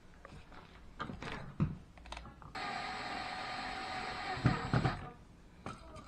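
Tools being handled with some clatter and knocks, then a cordless drill-driver's motor runs steadily for about two and a half seconds, with a few sharp knocks near the end of the run.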